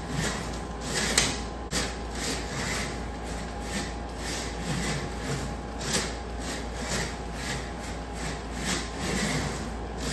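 A 1/32 scale Ginetta slot car lapping a Scalextric plastic track: its small electric motor whirring and its pickup braids and tyres rasping along the slot, pulsing rapidly as it runs through the curves.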